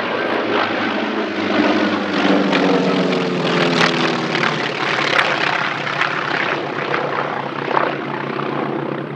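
Two North American T-28 Trojans' radial engines and propellers droning loudly in a close-formation pass overhead. The engine note drops in pitch as the pair goes over, then carries on steadily as they climb away.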